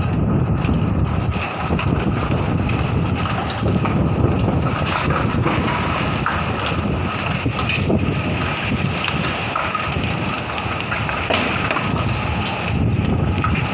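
Strong sandstorm wind gusting and buffeting the microphone in a loud, rising-and-falling rush, with a few short clicks mixed in.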